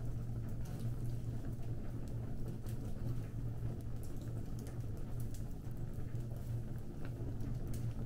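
Fire burning with a steady low rumble and scattered crackles and pops.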